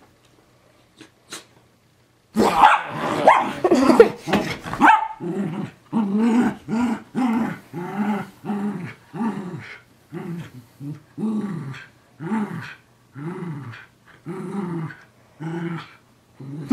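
A Schnauzer growling and snarling while play-fighting. There is a loud, dense outburst starting about two seconds in, then a steady run of short growls, about two a second.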